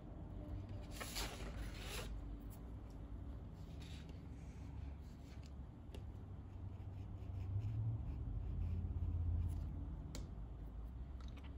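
Faint desk-handling sounds while painting: the sheet of watercolor paper rustles and slides for about a second as it is turned, then the soft rub of a paintbrush on the paper, with a few light ticks.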